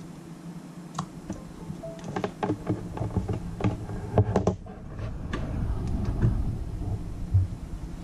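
Handling noise: scattered clicks and taps as a USB connector is pushed into a USB-C dongle and a tablet is lifted and handled on a desk, with low rumbling bumps partway through.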